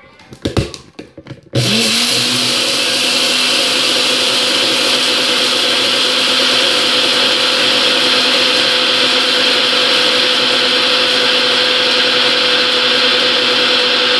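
NutriBullet blender grinding dry Kamut grain into powder. A few clicks as the cup is seated and pressed onto the base, then about a second and a half in the motor starts with a quick rise in pitch and runs loud and steady.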